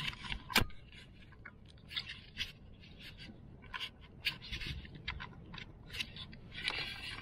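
Irregular scrapes and sharp clicks from a fishing kayak and its fittings as it moves on the water, over a faint low rumble; the loudest is a sharp click about half a second in.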